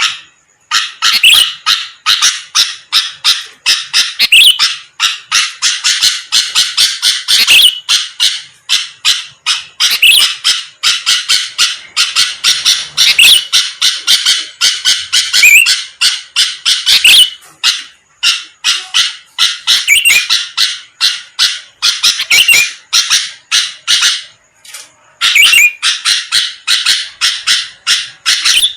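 Sooty-headed bulbul (kutilang) singing continuously: long runs of short, rapid chirping notes, several a second, broken by brief pauses.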